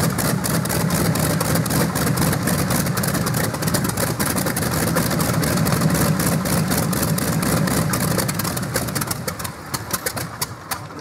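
Radial engine of the Roude Leiw pulling tractor running, a rapid beat of exhaust pulses over a steady low drone, getting quieter near the end.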